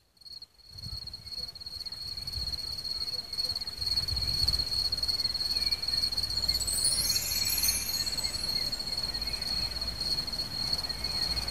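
Outdoor ambience fading in: a continuous high-pitched insect trill, steady in pitch, over a low rumble.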